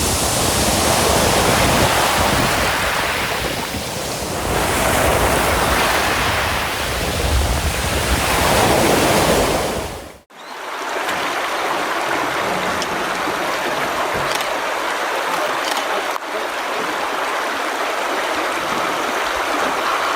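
Sea surf breaking on a beach, swelling about every four seconds, with wind buffeting the microphone. About halfway through it cuts off suddenly and gives way to a quieter, steady rush with a few faint clicks.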